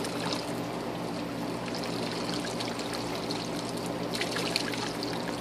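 Dye water pouring and trickling from a soaked flokati rug back into a plastic tub as the rug is squeezed out, with a few louder splashes about four seconds in.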